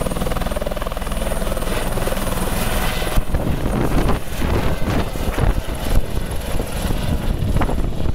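Eurocopter EC130 helicopter lifting off: its engine and rotor run at high power with a steady whine. From about three seconds in, gusty low rumbling of rotor wash buffets the microphone as it climbs away.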